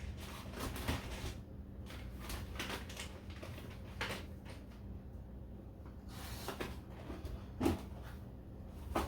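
Light knocks, taps and rustling of pantry packages being handled, turned upright and set down on a shelf, with a sharper knock about three-quarters of the way through. A faint steady hum runs underneath.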